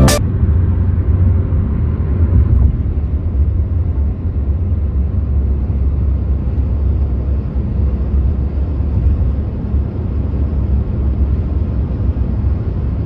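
Steady low rumble of road noise inside a moving car.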